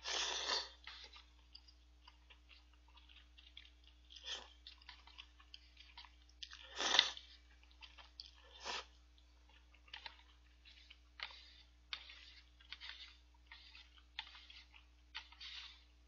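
Udon noodles being slurped and chewed, in a string of short slurps: a long one at the start and the loudest about seven seconds in, with quieter slurps and chewing between.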